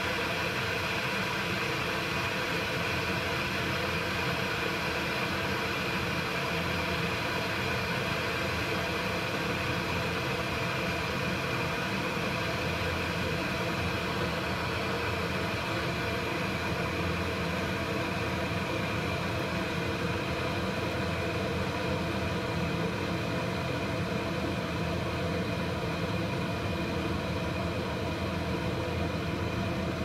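Kettle heating up toward the boil: a loud, steady rushing noise with a faint whine in it.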